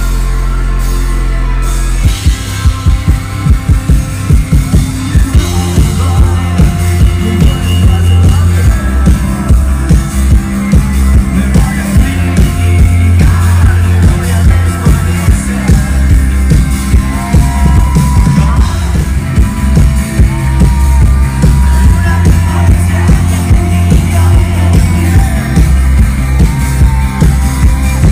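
Live rock band with electric guitars, bass and drum kit, heard loud from within the audience. A held chord rings for about two seconds, then the drums come in with a steady beat, and a voice sings over it in the second half.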